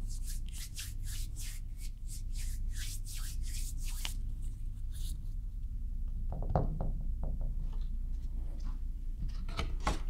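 Hands rubbing and brushing: a run of quick scratchy strokes over the first four seconds, then a few light touches and rustles as the adhesive-backed 3D wall panel is handled, over a steady low hum.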